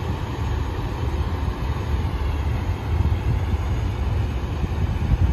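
Steady low rumble of heavy diesel vehicles.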